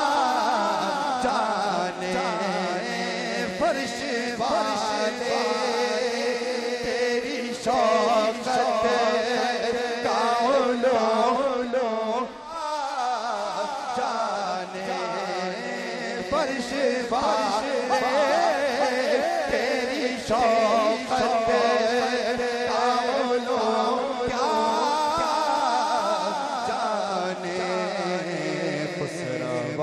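A man singing a naat into a microphone, in long, wavering melismatic phrases, with a short break about twelve seconds in.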